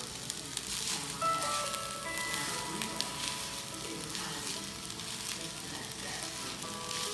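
Food frying in a pan on the stove: a steady sizzle with many small crackles.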